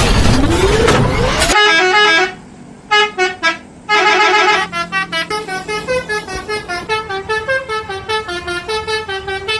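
Telolet bus horn (Basuri-style multi-tone air horn) playing a quick melody of short, stepping notes, with two brief pauses early in the tune. It follows about a second and a half of loud noisy rush with a rising pitch.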